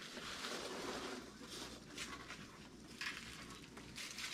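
Rustling and scraping of packing foam and cardboard packaging being handled in an opened shipping box, with a few short sharp scrapes.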